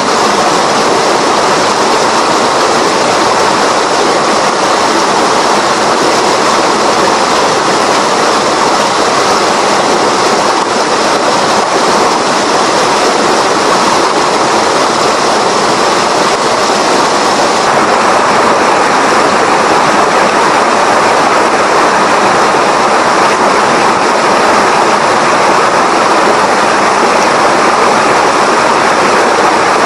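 Mountain river swollen by heavy rain, its water rushing loudly and steadily. The upper hiss changes slightly about 18 seconds in.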